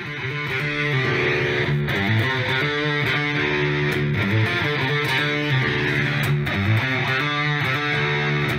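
Instrumental music led by guitar, steady and continuous.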